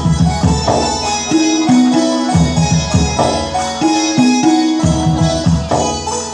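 Instrumental break of a Bengali folk song: hand drums strike a steady beat, their low notes bending down in pitch, under a melody line, with no singing.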